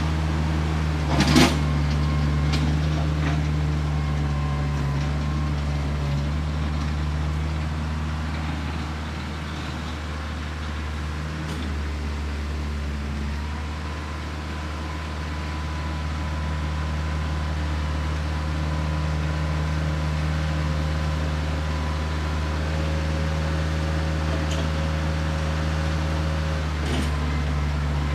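Branson 4520 tractor's diesel engine running steadily as it pulls a box blade over dirt. It grows quieter in the middle as the tractor moves farther off, then louder again near the end. A sharp knock about a second in.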